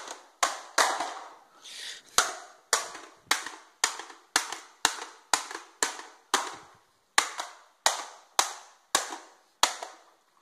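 Hammer blows on the plastic casing of an Xbox 360 power supply brick lying on a tiled floor: some seventeen sharp knocks at about two a second, with a gap of about a second near the start, each ringing briefly.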